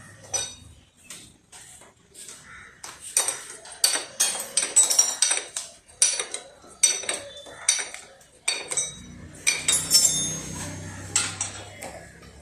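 Metal tools and motorcycle parts clinking and clanking in quick, irregular strikes that ring brightly. A low hum joins in about nine seconds in.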